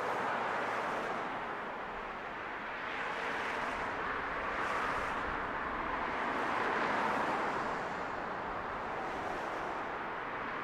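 Distant road traffic: a steady rushing noise that swells and eases every few seconds as vehicles pass.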